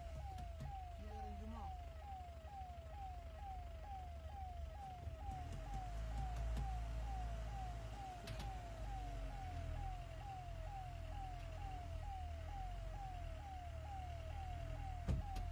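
Forest vehicle's engine running low and rough, with its electronic reversing alarm sounding a short falling beep about twice a second as it backs away from the elephant.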